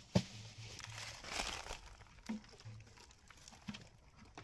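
Fibrous palm-trunk pith being torn and pulled apart by hand, crackling and snapping in scattered bursts. A single sharp knock sounds just after the start.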